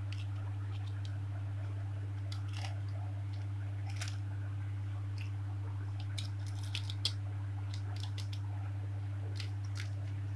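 Paper cards and sticker sheets being handled and laid on a table: light rustles and scattered sharp clicks, the sharpest about seven seconds in. A steady low hum runs underneath.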